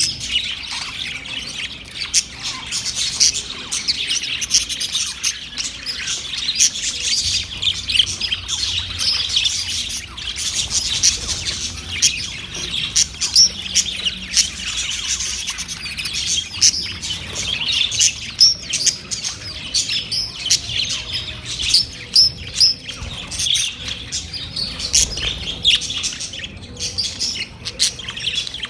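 Budgerigars chattering, a dense run of many overlapping short chirps and squawks.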